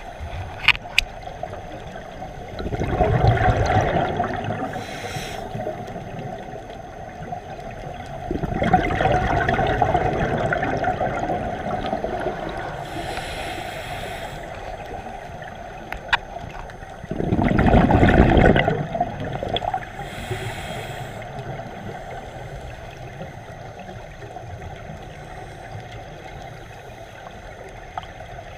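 Underwater breathing through a scuba regulator: three long rushes of exhaled bubbles gurgling out several seconds apart, with softer hissing breaths between them and a few small clicks.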